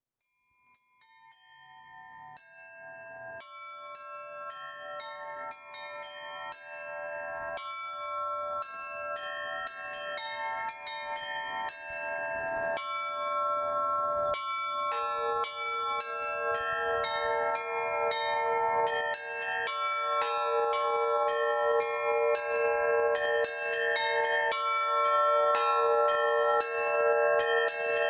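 Russian church bells in an improvised peal by one bell-ringer: it starts quietly with a few strikes on small bells and builds steadily in loudness and density, and a deeper bell joins about halfway through and keeps ringing under the higher bells.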